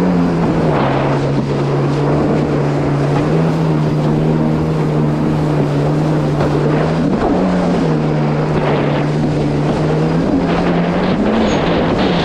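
Yamaha GP1800R SVHO WaveRunner's supercharged 1.8-litre four-cylinder engine running at a steady pace, its pitch shifting briefly twice, with wind and water noise over the microphone.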